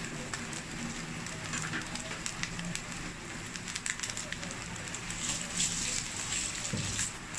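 Garlic fried rice with spring onions frying in oil in a stainless steel pan: a steady sizzle with many small crackling pops.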